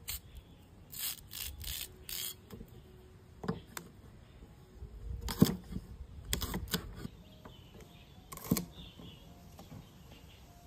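Knife cutting taro stalks on a chopping board: a few quick short strokes, then irregular knocks of the blade through the stalk onto the board, the loudest about five and a half seconds in.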